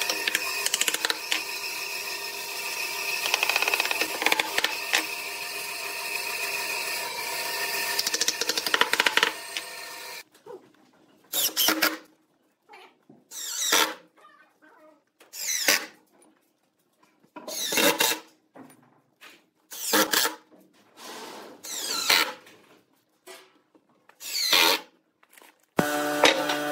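Cordless drill run in short bursts about every two seconds, each one whirring up and down in pitch, driving screws through a pine table's ring frame into its cross braces. Before the bursts, about the first ten seconds hold a continuous dense mix of knocks and steady tones.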